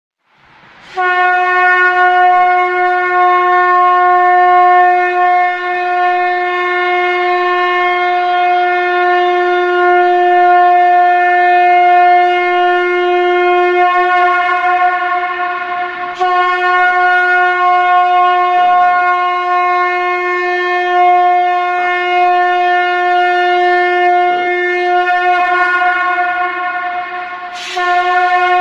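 Conch shell (shankha) blown in one long, steady horn-like note, starting about a second in, with a brief dip around the middle and another near the end.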